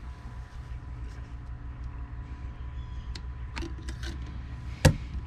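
Metal fittings clicking and clinking as a compressor's high-pressure fill hose is unscrewed from a small scuba tank's valve, a few light clicks followed by one sharp click near the end, over a steady low hum.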